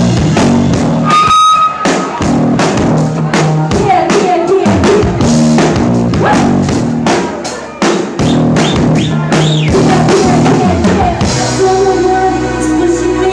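A live band playing a pop-rock song: a drum kit beat under bass, other instruments and singing. About eleven seconds in the drums drop out, leaving held notes.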